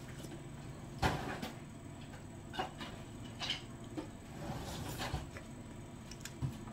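Close-up slurping of sotanghon glass noodles and sipping of soup broth from a spoon: a run of short slurps, the loudest about a second in, with a longer slurp around five seconds and a small knock near the end.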